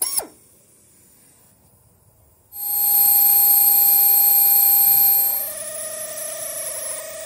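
Drill spinning a step bit through the guide bushing, drilling out a broken fuel injector hold-down bolt in a Ford 6.7L Power Stroke cylinder head. A brief whine winds down right at the start; after a pause the drill runs up about two and a half seconds in to a steady high whine, which drops to a lower, quieter pitch a few seconds later and keeps running.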